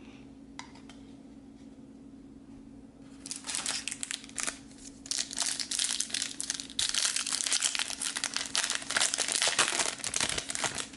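Foil wrapper of a Garbage Pail Kids Chrome trading card pack being crinkled and torn open by hand, starting about three seconds in and going on in irregular bursts until near the end.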